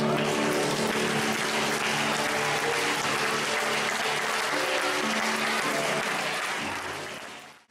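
Audience applause over background music, with both fading out at the end.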